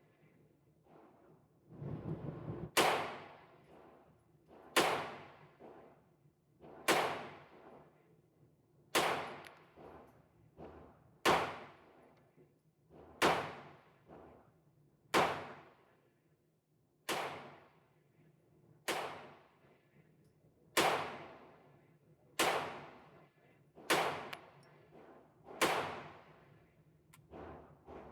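Slow, evenly paced semi-automatic gunshots from a 9mm AR-15 pistol, about one every two seconds, each followed by a ringing, echoing tail, with fainter knocks between the shots.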